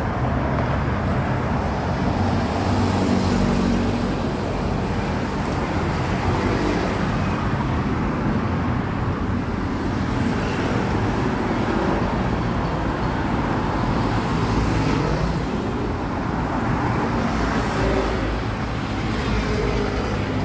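Steady road traffic noise: passing vehicles' engines and tyres, with a low engine hum.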